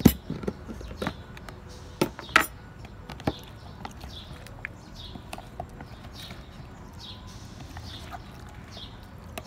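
Sharp plastic clicks and knocks as the snap-on lid of a plastic food container is pried off and set down, the loudest right at the start, then softer handling of the pickled vegetables. Small birds chirp in the background in the second half, short high descending chirps repeated every second or so.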